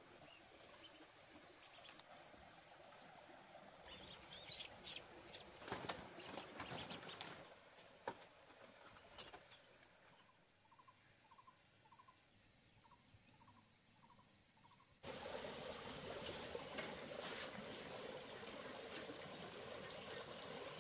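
Scattered light knocks and clatter of bamboo poles being handled and carried. Then a bird calls in a quick run of short chirps, about two a second, and the sound cuts suddenly to a steady rushing noise.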